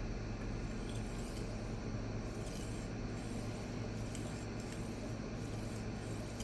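Faint scraping strokes of a knife edge across a small resin-bonded diamond pocket stone that is loaded up with swarf, over a steady low hum.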